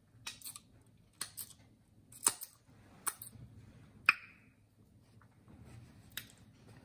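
Close-up eating sounds: a string of about eight sharp, wet smacks from lips and fingers being licked clean of sauce while chewing seafood, spaced irregularly.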